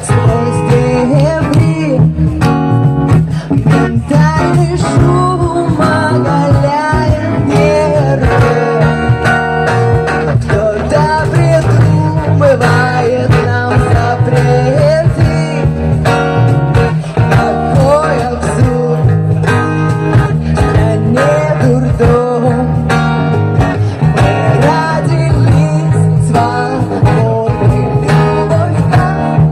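Music: a guitar-led song played over a steady bass, with a melodic line that bends in pitch above it.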